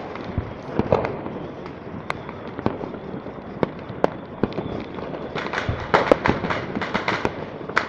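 Many fireworks and firecrackers going off all around, with irregular sharp bangs over a constant crackle and a thicker run of bangs about five and a half seconds in.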